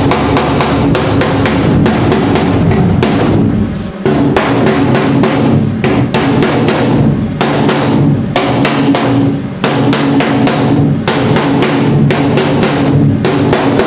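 Background music with a steady, driving drum beat.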